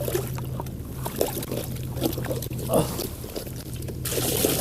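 Water sloshing and dribbling as live sea hares are handled in a container, then a steady rush of pouring water starting near the end, over a low steady hum.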